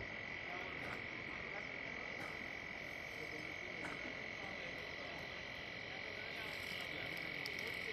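A steady, high-pitched animal chorus droning on one unbroken pitch.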